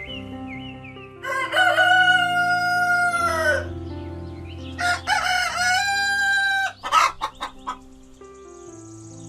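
Rooster crowing twice, each a long drawn-out call that drops at the end, followed by a quick run of short clucks, over soft background music.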